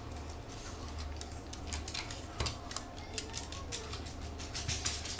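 Quick, irregular light clicks of a small dog's claws on a wooden floor as the Brussels Griffon moves off, over a low steady hum.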